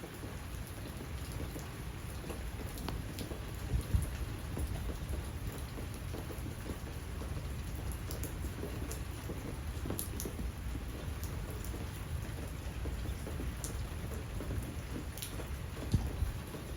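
Steady rain falling during a thunderstorm, with a steady low rumble underneath and scattered sharp taps of drops striking nearby surfaces.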